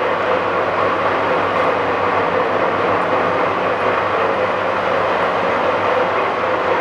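National LB32-120 hollow-spindle oil-field lathe running steadily at 300 RPM, its top spindle speed, with an even mechanical whir and a few steady tones from the spindle and gear train.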